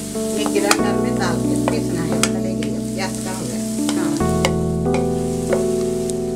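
Sliced onions sizzling in oil in a nonstick frying pan while a wooden spatula stirs and scrapes them, with sharp scraping clicks. Background music with sustained chords plays underneath, changing chord about a second in and again past the middle.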